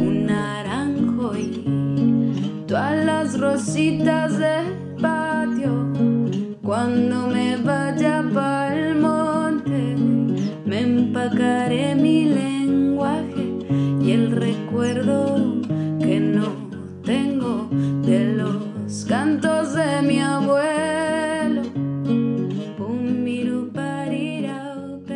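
Background music: a song with strummed acoustic guitar, bass and a singing voice, fading out near the end.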